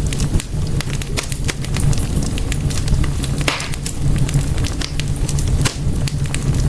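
Wood fire burning in a fireplace: a steady low rumble of flames with irregular sharp crackles and pops, one longer crackling hiss about halfway through.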